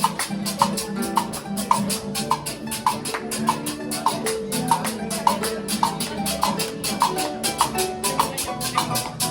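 Instrumental passage of a vallenato, played on guitar and harp with hand percussion keeping a steady, quick rhythm of shaker-like strokes.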